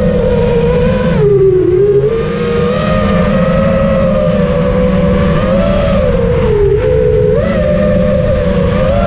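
FPV racing quadcopter's motors and propellers whining, heard from the onboard camera. The pitch rises and falls with the throttle, dipping briefly about a second and a half in and again near the end, over a low rumble.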